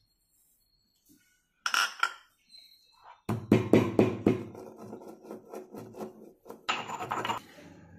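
Stone pestle pounding fennel seeds in a stone mortar to crush them coarsely. A quick run of sharp knocks begins about three seconds in, followed by lighter strokes and a short burst of grinding and scraping near the end.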